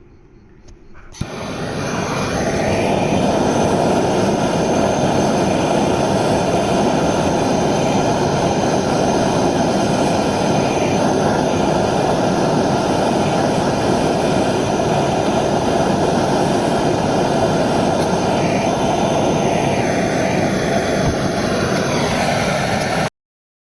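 Handheld gas torch burner flame running with a steady loud rushing hiss while it heats a copper pipe joint for soldering. It comes up about a second in and cuts off abruptly near the end.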